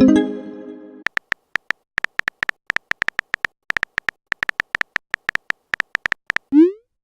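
Smartphone texting sound effects: a message alert chime that rings out and fades over about the first second, then a long run of short, quick keyboard tap clicks at an uneven typing pace, and a brief rising whoosh near the end as a message is sent.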